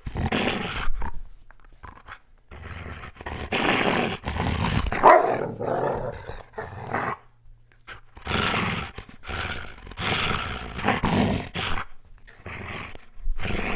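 Big German Shepherd growling loudly in rough bouts with short pauses between them, mixed with a few barks. It is play-growling during a game of tug of war.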